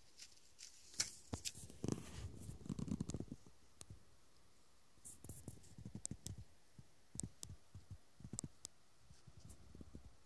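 Faint, irregular crunching and scraping of snow, in two spells with a short lull between them.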